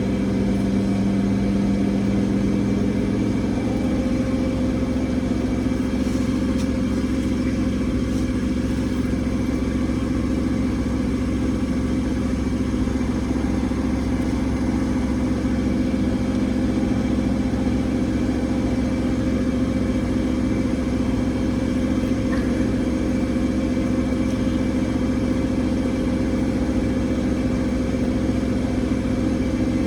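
Bauknecht washing machine spinning at 1400 rpm: a steady motor hum and drum rumble with a held whine. A lower tone drops away a few seconds in.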